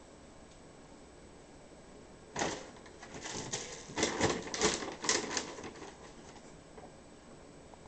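A bag crinkling and rustling as a cat moves about inside it: a quick run of crackling bursts starting about two and a half seconds in and dying away after about three seconds.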